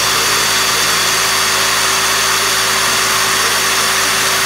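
Homemade motor-generator rig running steadily: an electric motor on a variable-frequency drive, set to about 66 Hz, spins a generator. It makes a continuous whirring noise with a thin high whine that holds a constant pitch.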